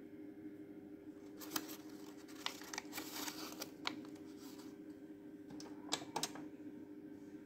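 Scattered light clicks and crinkling from a hand handling the crumpled, jammed paper and ink tubes inside an Epson L380 inkjet printer, with a pair of sharper clicks near the end, over a faint steady hum.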